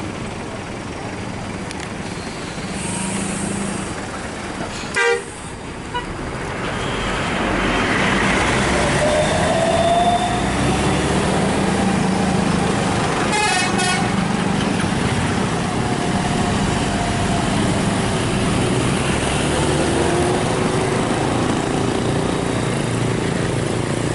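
Tour bus engine running as the bus passes and pulls away along the road, getting louder about a third of the way through. A short, loud horn blast sounds about five seconds in, and another brief horn-like burst near the middle.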